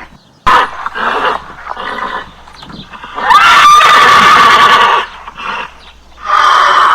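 A series of animal calls: several short calls, then about three seconds in a longer, loud call that rises in pitch and holds steady for about a second and a half, followed by more short calls near the end.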